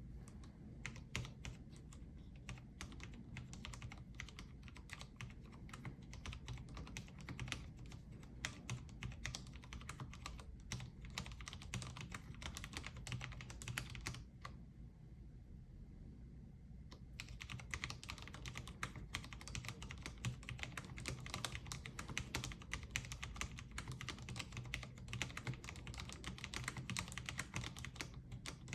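Typing on a Cherry MX Board 10.0 Low Profile RGB keyboard with Cherry's low-profile MX Red linear switches: a fast, continuous run of keystrokes. The typing stops for about two seconds around the middle, then resumes.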